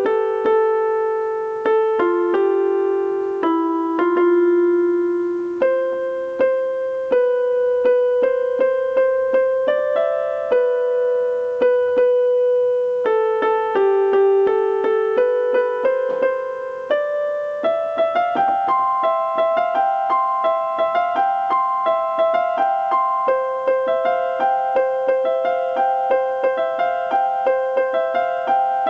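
A slow, gentle piano melody of single struck notes in the middle register, with little bass. From about 18 seconds in, a steady run of evenly repeated notes joins under the tune and the playing grows fuller.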